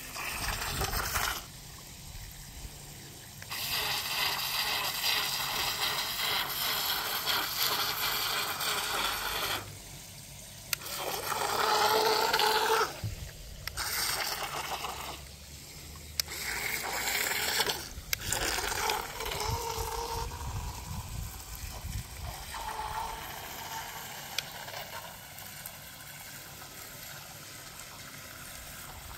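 Toy RC speedboat's two small electric motors whining and its propellers churning water. The sound comes in bursts of a few seconds as the throttle is opened and let off, loudest about halfway through.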